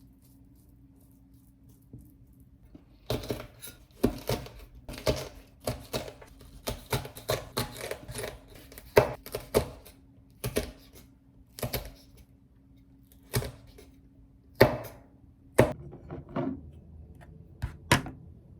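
Knife chopping on a cutting board: sharp, irregular strokes about one to two a second, over a faint steady hum.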